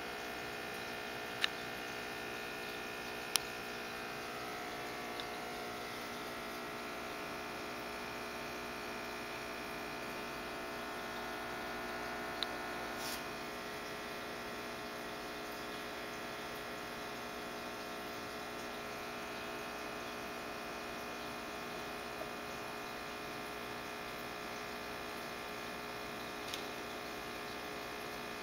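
Steady electrical hum from aquarium equipment, with a few faint clicks.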